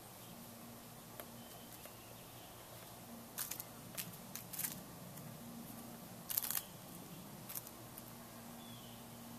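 A handful of short, sharp clicks and taps, a few in a cluster near the middle and one last one late on, over a faint steady low hum.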